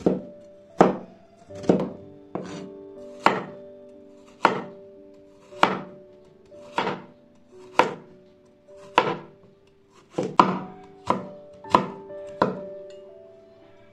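Large kitchen cleaver chopping carrot into thin strips on a wooden cutting board: sharp, regular chops about one a second, coming quicker near the end, over soft background music.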